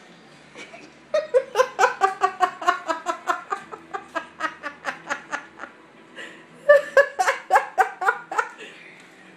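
A person laughing hard in two long fits of quick, rhythmic 'ha-ha' bursts. The first starts about a second in and lasts over four seconds; the second comes about seven seconds in.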